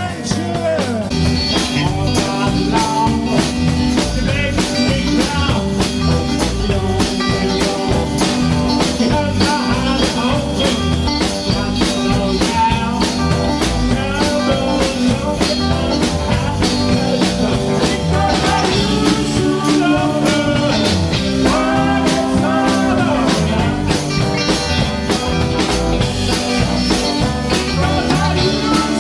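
Rock band playing a blues-rock number: electric guitars and a drum kit, with a man singing.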